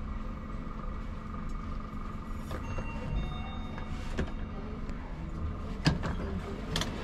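Glass passenger lift running with a steady hum, its doors sliding open, then a couple of sharp clicks near the end.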